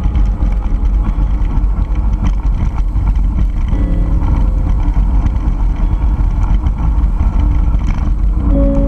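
Heavy wind rumble on the action camera's microphone as a mountain bike rolls fast down a dirt fire road, with scattered clicks and rattles from the bike over the rough surface. Faint background music with held notes comes through about four seconds in and again near the end.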